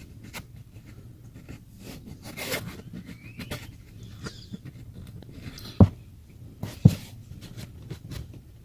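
Handling noise of fingers fitting a small plastic screw into a car's cabin-filter cover: scattered light clicks and rustles, with two dull thumps about a second apart a little past the middle.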